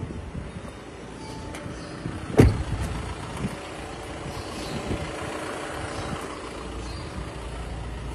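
An Audi A4 B9's door shut with a single loud thud about two and a half seconds in, over the steady low running of the car's engine at idle.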